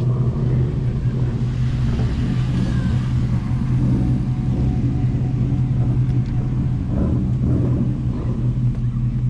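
Ford Mustang GT's 5.0 V8 engine running at a steady idle, a constant low rumble with no revving.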